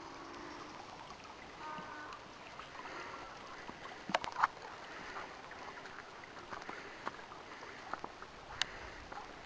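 A small spring-fed stream running over stones, a steady hiss of flowing water, with a few sharp clicks about four seconds in and again near the end.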